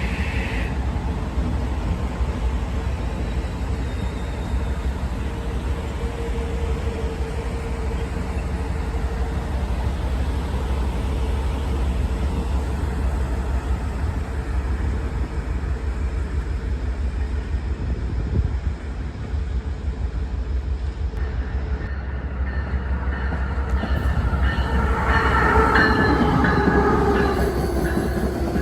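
Train running by with a steady rumble and a held tone. It grows louder near the end, with several higher-pitched tones and one tone falling in pitch.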